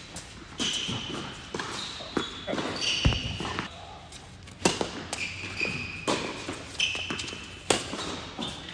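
A tennis ball bounced once on the court before a serve, then the serve and rally: sharp racket-on-ball pops about a second and a half apart, echoing in a large indoor tennis hall.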